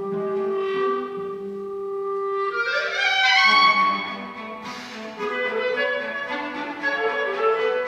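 Clarinet and cello playing a contemporary duet: a long held note, then a quick rising run about two and a half seconds in, the loudest moment, followed by busier moving notes from both instruments.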